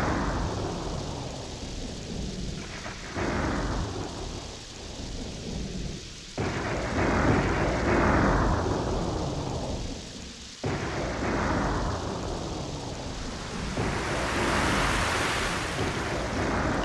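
Thunder in repeated claps, each starting suddenly and fading into a rumble, about every three to four seconds, over a steady rain-like hiss that swells near the end.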